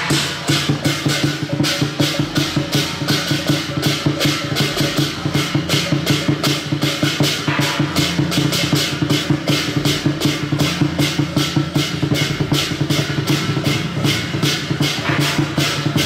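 Procession percussion playing a fast, even beat of about five strikes a second, over a steady low hum.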